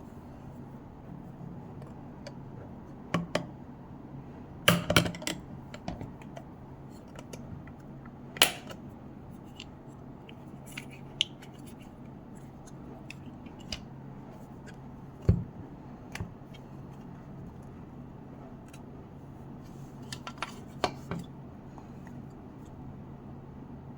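Scattered clicks, taps and short scrapes of tools and plastic parts of a Bose SoundLink Color 2 speaker being handled while it is taken apart, with a cluster of clicks near the end. A steady low hum runs underneath.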